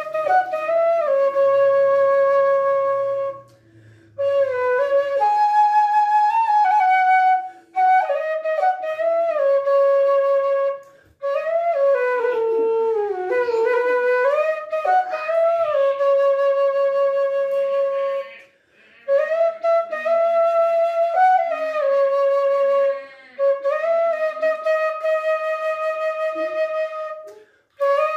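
A bamboo suling flute in F-sharp, about 54 cm long, playing a slow melody. Long held notes waver slightly, and the phrases are broken by short pauses for breath.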